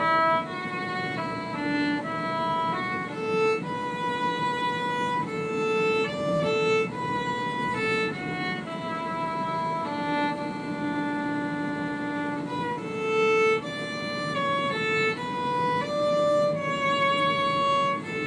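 Background music: a violin melody moving through a series of held notes.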